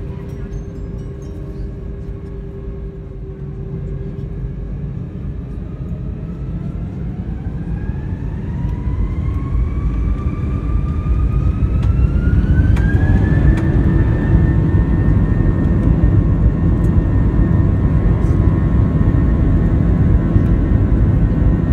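Airbus A321-231's twin IAE V2500 turbofan engines spooling up to takeoff thrust, heard from inside the cabin. A whine rises in pitch for about eight seconds, then holds steady over a growing rumble as the takeoff roll gets under way.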